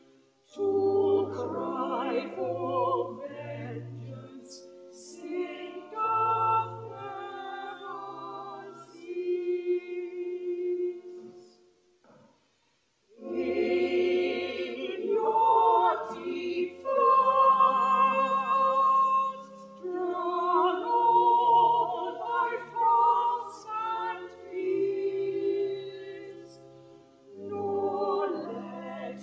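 Church choir singing with pipe organ accompaniment, steady low organ notes under the voices. The music breaks off briefly about twelve seconds in, then the next phrase begins.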